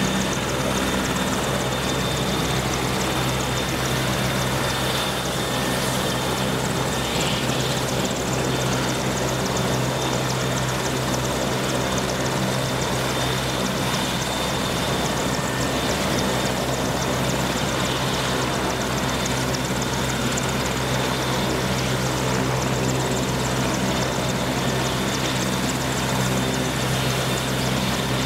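Merlin (AW101) helicopter running steadily: a constant rotor and turbine roar with a thin high whine over it, holding at the same level throughout.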